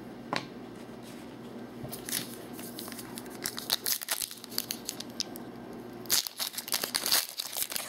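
A trading-card pack wrapper being torn open and crinkled by hand: a scattered crackling rustle about two seconds in, then a denser burst of crinkling near the end.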